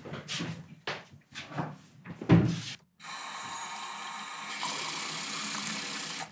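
A few short knocks and clinks, the loudest about two and a half seconds in. Then water runs steadily from a kitchen tap into a drinking glass, getting a little louder partway through and cutting off suddenly at the end.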